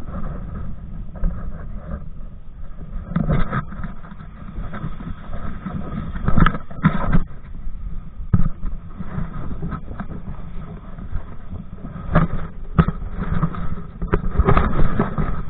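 Wind rumbling on a body-worn camera's microphone while a kite-pulled kayak moves over the water, with irregular splashes of water against the hull.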